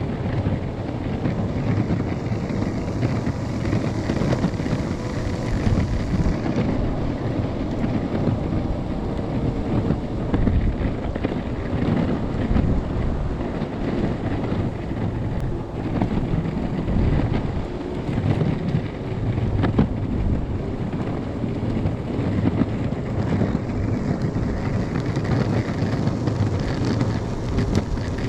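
Strong wind buffeting the action-camera microphone: a loud, gusting rumble that never lets up.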